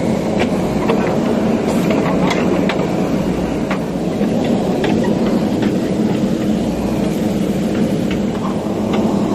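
Diesel engine of a JCB 3DX backhoe loader running steadily under work, with scattered light clicks and knocks over the engine noise.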